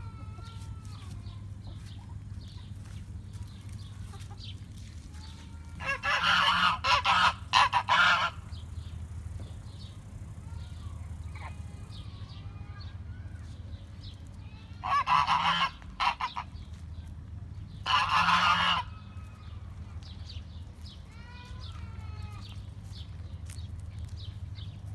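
Farm poultry calling loudly in three bouts: a cluster of several calls about six to eight seconds in, then one about fifteen seconds in and another about eighteen seconds in. Faint chirps of small birds and a low steady hum carry on between the bouts.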